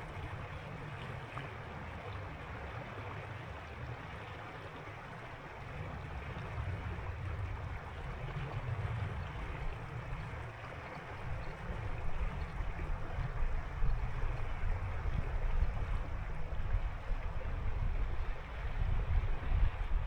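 Winter mountain river flowing: a steady rushing of water, with low rumbling gusts that grow stronger in the second half.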